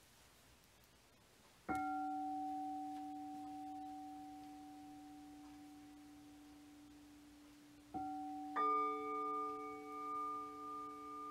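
Singing bowls struck with a mallet and left to ring: one bowl is struck about two seconds in and rings with a few clear, slowly fading tones. It is struck again near the end, and a second, higher bowl joins half a second later, its ringing wavering in loudness.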